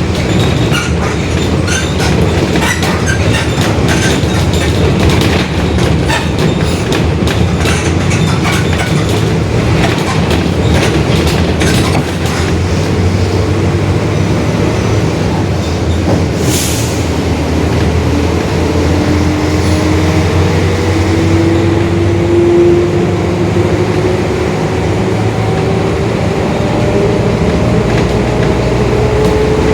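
Mercedes-Benz OF-1721 BlueTec 5 city bus running under way, heard from inside the cabin: a steady low drone with heavy rattling from the body during the first half, and a brief hiss about halfway through. From about two-thirds of the way in, a whine from the growling differential rises steadily in pitch.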